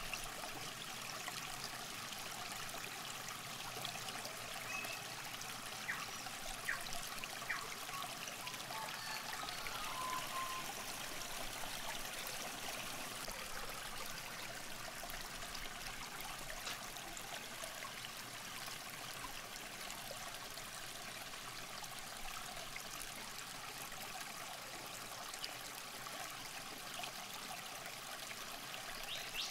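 River water trickling steadily along the bank, a soft even rush.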